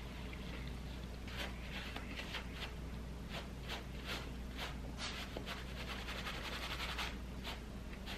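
Paper napkin rubbing on a knit sweater in short scratchy strokes, about three a second, wiping off a food spill.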